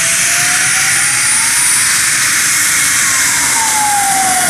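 Cessna Citation Bravo business jet's engines whining over a steady jet hiss as it taxis past. The whine rises in pitch over the first two seconds, then falls away.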